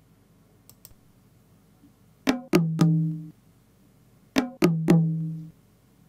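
Two faint mouse clicks, then sampled bongo hits played back by the BeatBuddy Manager software's virtual pedal using a bongo-only drum kit: two groups of three quick strikes about two seconds apart, each ringing briefly. Only bongos sound because the kit holds nothing but bongo samples.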